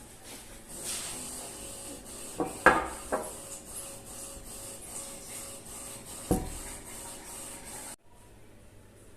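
Rubbing and rustling of things being handled, with a few knocks: three close together about two and a half to three seconds in and one more about six seconds in. The sound cuts off suddenly near the end.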